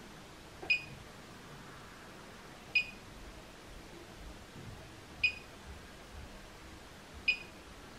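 Four short electronic key beeps, about two seconds apart, from a FeelTech function generator. Each beep marks a button press as the output waveform is switched.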